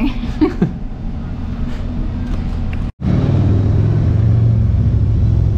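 Motorcycle engine running with a steady low rumble. The sound drops out for an instant about three seconds in and comes back louder.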